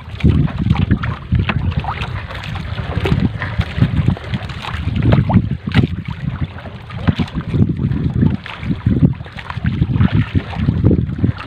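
Wind buffeting the microphone in irregular gusts, over scattered splashes and drips of water as a wet fishing net is hauled hand over hand into a boat.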